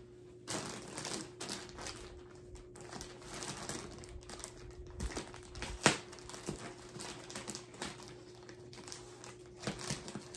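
A large plastic shipping bag being handled and opened, crinkling and rustling in irregular crackles, with one sharper snap about six seconds in.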